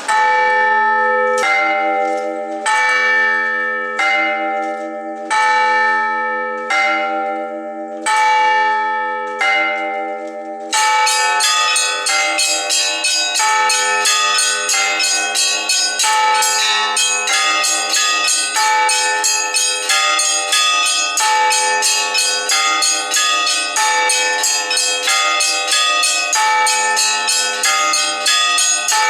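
Orthodox church bells ringing: slow strokes about every second and a half, each sounding several bell pitches at once, then about eleven seconds in many bells join in a fast, dense peal.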